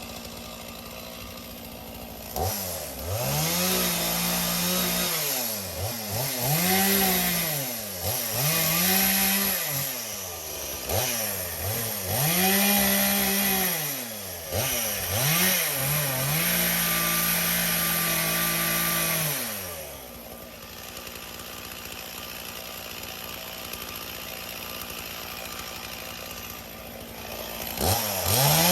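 Chainsaw engine idling, then revved hard in about seven bursts of a couple of seconds each, dropping back between them, as it cuts through the fallen branch. It settles back to idle for several seconds before revving up again near the end.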